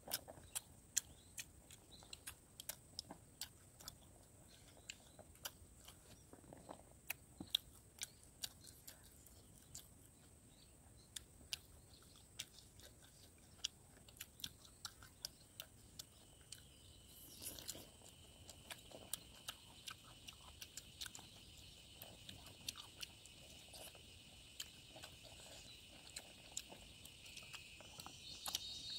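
Faint close-up chewing and eating by hand: a string of small, sharp, irregular mouth clicks as rice and pork are chewed. A steady high-pitched whine comes in a little past halfway and stays.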